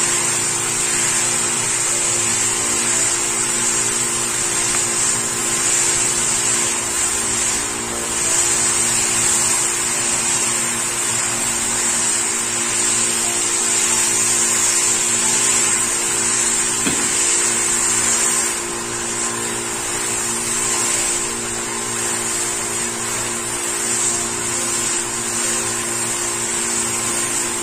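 Motorised sprayer pump running with a steady whine, and the hiss of the nozzle spraying a fine mist of liquid nutrient over the seedlings.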